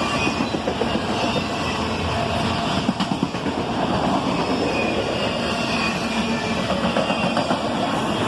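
Freight train of autorack cars rolling steadily past, a continuous noise of steel wheels on the rails.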